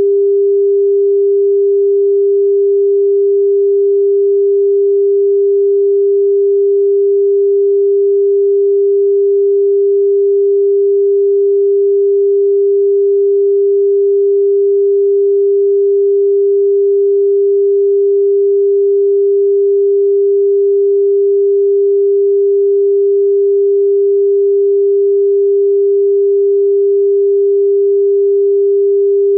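A steady, unbroken pure sine tone at about 400 Hz (399.471 Hz), the frequency the channel assigns to Jie Geng (Platycodon root).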